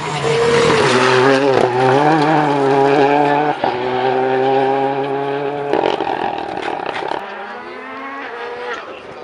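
Renault Clio rally car's engine revving hard as the car accelerates away, its pitch wavering through gear changes, with a short break about three and a half seconds in. Near the end a fainter rally-car engine note rises as another car approaches.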